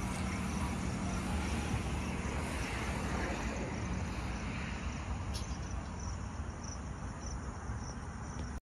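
Insects chirping steadily in a high, evenly pulsing pattern over a low, constant traffic rumble.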